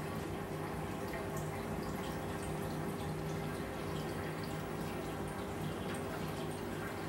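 Reef aquarium's water circulation: steady trickling and dripping of water, with a steady low hum underneath.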